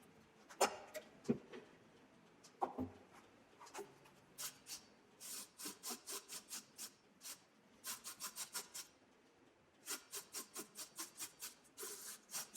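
A hand tool working wood: a few scattered knocks, then two runs of quick back-and-forth scraping strokes, about three to four a second.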